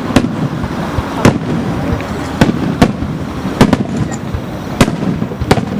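Aerial fireworks bursting: about eight sharp bangs at uneven intervals, over a continuous rumble of more distant bursts.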